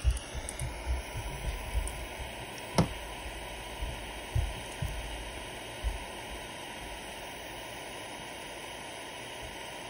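Steady hiss of a butane soldering iron held on the terminals while it melts solder, with soft handling bumps over the first six seconds and a single sharp click about three seconds in.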